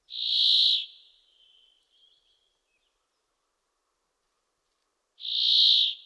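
Brambling giving two long, harsh calls about five seconds apart, each under a second long; the second comes near the end.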